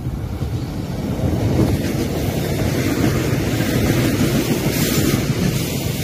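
Korail Line 1 electric commuter train passing close by, its wheels rumbling on the rails. The rumble swells about a second and a half in as the cars draw alongside, then holds steady.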